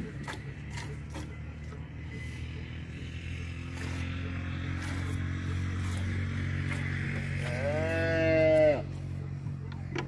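A cow moos once, a single long call of over a second near the end, dropping in pitch as it cuts off.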